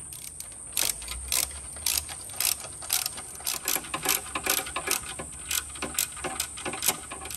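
Hand ratchet clicking in quick back-and-forth strokes, about two a second, as bolts are tightened down. A steady high-pitched insect buzz runs underneath.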